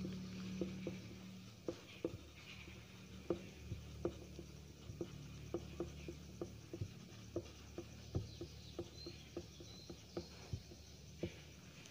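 Marker writing on a whiteboard: a faint, irregular run of light ticks and short strokes as the letters are formed, two or three a second.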